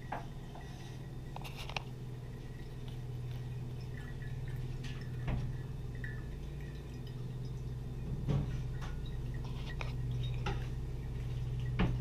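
Homemade fruit-juice wine dripping and trickling through a paper coffee filter and funnel into a glass mason jar as it is strained off the dead yeast. A steady low hum runs underneath, with a few light clicks.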